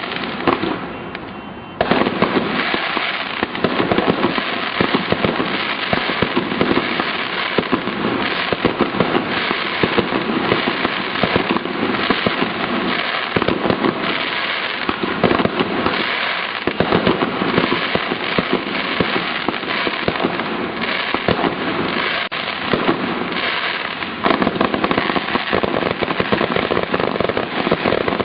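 Fireworks going off in a dense, continuous barrage of rapid bangs and crackles, with a short lull about a second in.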